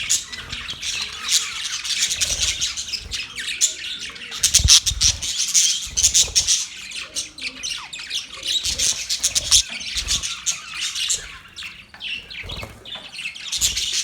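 Budgerigars chattering and chirping continuously, many short rapid calls and squawks overlapping, with a few low bumps among them.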